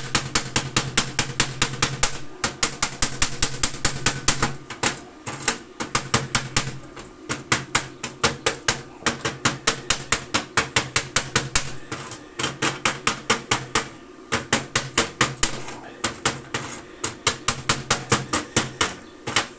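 Welder's chipping hammer striking slag off a freshly laid stick-weld bead on steel plate. Rapid metallic blows, about five a second, come in runs broken by short pauses.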